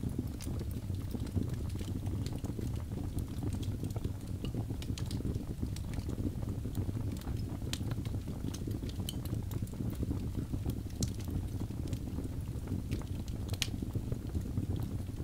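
Wood fire burning in a fireplace: a steady low rumble with irregular crackles and sharp pops, a couple of them louder in the second half.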